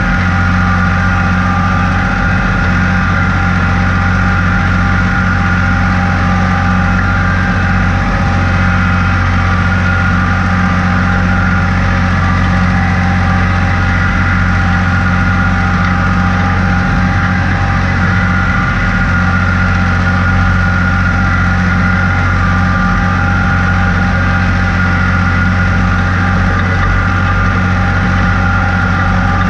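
Tractor engine running steadily while pulling a three-point mounted moldboard plow through the soil. It is a constant, even drone with no change in speed.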